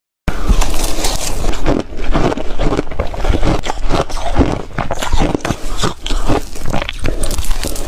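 Reshaved refrigerator ice being chewed close to the microphone: a dense, irregular run of crisp crunches and scrapes.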